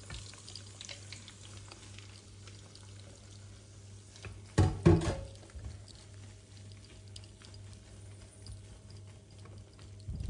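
Beaten egg with black locust flowers frying in hot oil in a nonstick pan, with a faint sizzle and crackle while a silicone spatula pushes and spreads it, over a steady low hum. A loud knock about halfway through and a smaller one near the end.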